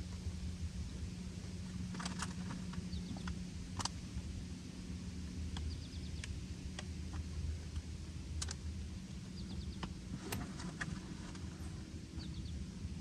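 Steady low motor hum with a few sharp knocks scattered through it, and faint high bird chirps.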